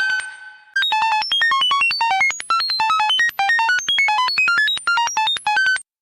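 Rapid electronic beeps, about seven a second, each a short tone at a different pitch in a jumbled sequence. They pause briefly just after the start, resume, and cut off suddenly near the end.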